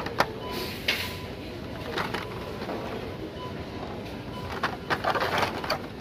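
Hot Wheels blister-pack cards being handled and pushed along metal display pegs: short plastic-and-card clicks and rustles, busiest about five seconds in.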